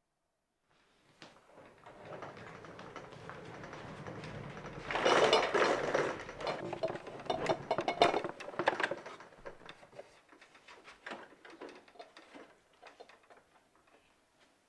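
Cloth rustling that builds into a loud stretch of shuffling a few seconds in, then slippers scuffing on a wooden floor and scattered light clicks and knocks of small things being handled.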